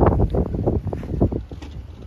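Wind buffeting the microphone in rough gusts, dying down over the second half. The tail end of a passing passenger train fades away under it.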